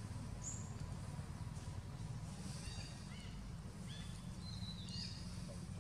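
Outdoor ambience: a steady low rumble with a few short, high animal chirps and whistles scattered through it, about half a second in, around the middle, and again a little later.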